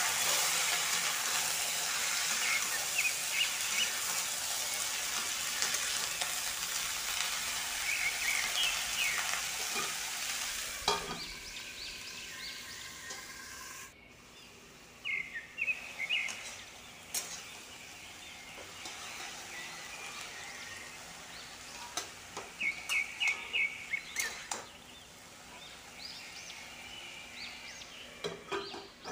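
Sliced pointed gourd sizzling as it is stir-fried in a hot kadai, with a spatula scraping and ticking against the pan. About eleven seconds in, a metal clank as a steel lid goes on, after which the sizzle is quieter. Birds chirp in short bursts in the background, most around two-thirds of the way through.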